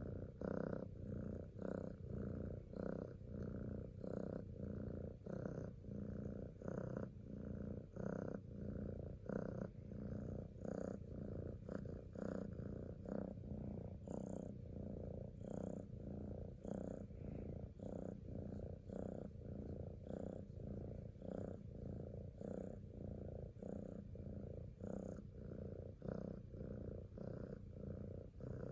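Kitten purring steadily and close up, a low rumble that swells and eases in an even rhythm of about three pulses every two seconds with its breaths.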